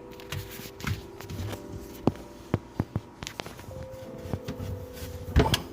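Scattered clicks and knocks of hands working loose the old faucet's nuts and connections under a bathroom sink, with a louder knock near the end. Soft sustained background music runs underneath.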